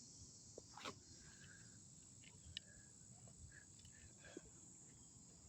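Faint steady high-pitched chorus of crickets, with a few soft clicks and chirps.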